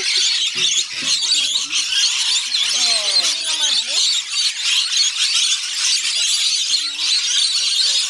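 A large flock of rainbow lorikeets screeching and chattering without a break: a dense, shrill din of many overlapping calls.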